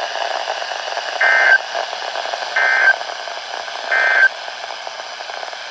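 Emergency Alert System end-of-message signal: three short bursts of warbling digital data tone, about a second and a half apart, sounding over steady radio hiss as the broadcast warning ends.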